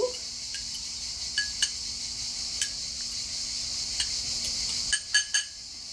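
A small spoon clinking against a small glass bowl as an oil-and-vinegar dressing is beaten to dissolve the salt. The clinks are scattered, with a quick run of several near the end.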